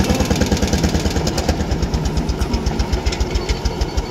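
Vintage tractor engine running at idle with a steady, rapid pulsing beat and sharp ticking on top.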